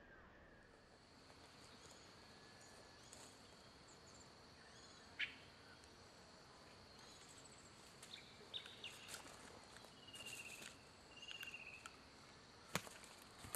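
Faint evening waterside ambience: a steady high insect trill, with scattered short bird chirps and trills in the second half. Two sharp clicks stand out, one about five seconds in and one near the end.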